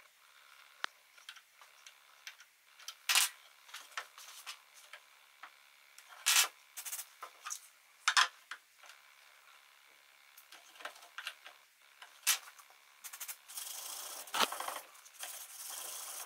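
Hand-work noises on a pine frame: scattered clicks and taps of a hex key turning a bolt in a threaded insert, and the frame being knocked and handled, with a few sharper knocks. Near the end a steadier rubbing noise runs for a few seconds.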